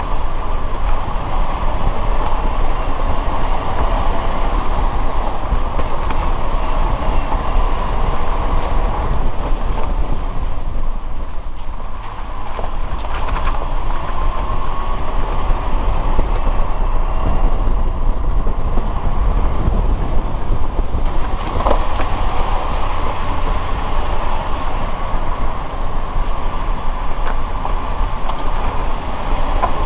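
Suzuki Jimny driving: a steady rumble of engine and tyres, with a few scattered clicks and knocks.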